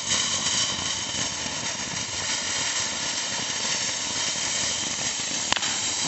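Firework fountain burning, a steady hissing rush of sparks spraying upward. A single sharp pop breaks in near the end.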